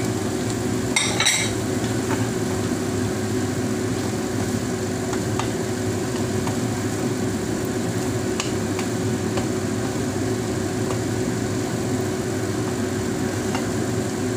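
Fried eggplant tipped from a plate into a frying pan of vegetables, with a brief clatter about a second in, then a wooden spatula stirring the vegetables in the pan, with faint scattered taps, over a steady background hum.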